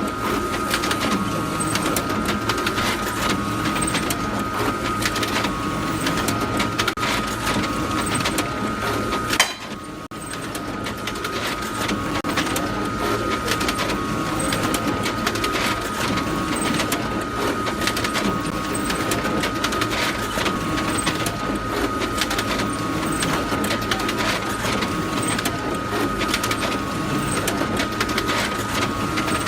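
Photocopier running: a steady mechanical whir with a constant high whine and fast clattering of its paper-feed mechanism. About nine seconds in there is a sharp clack and the noise briefly drops before picking up again.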